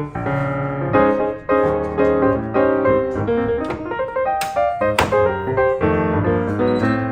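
Background music led by piano, with a stream of short notes over a bass line.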